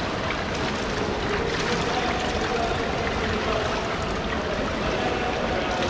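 Pool water sloshing and lapping close to the microphone at the edge of an indoor swimming pool, a steady wash of noise in the echoing hall.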